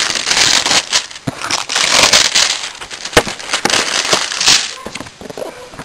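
Packaging crinkling and rustling as a paintball loader is pulled out of its box, with scattered sharp clicks and knocks; it eases off near the end.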